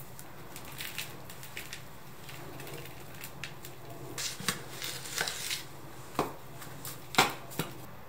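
Hands working potting soil and a root ball into a plastic pot: scattered crumbly rustles and scrapes of soil and roots, with a few sharper clicks and knocks, the sharpest one near the end.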